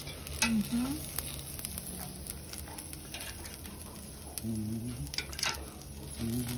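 Metal tongs clicking and tapping against the metal kebab skewers and the steel grate of a small charcoal grill as the skewers are turned, a handful of separate clicks over a faint crackle from the cooking.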